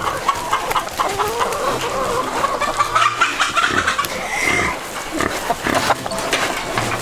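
Chickens clucking and pigs grunting together in a shared pen.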